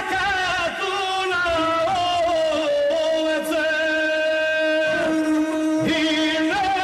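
Gusle, the single-stringed bowed fiddle of South Slavic epic song, playing a wavering, ornamented melody in a narrow range.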